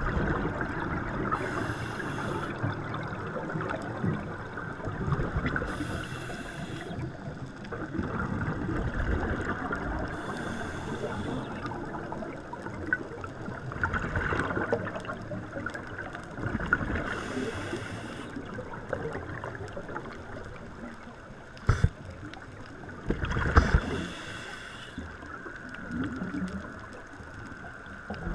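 Underwater dive sound: a steady low churning, broken five times by a second-long hissing burst of scuba divers' exhaled regulator bubbles, a few seconds apart. A single sharp knock comes about three-quarters of the way through.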